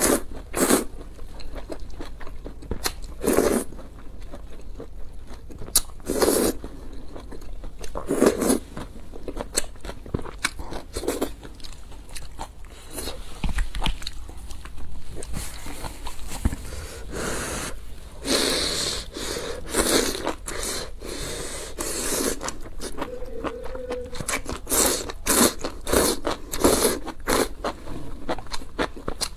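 Close-miked eating sounds: a person slurping noodles from a spicy soup and chewing, in repeated short bursts.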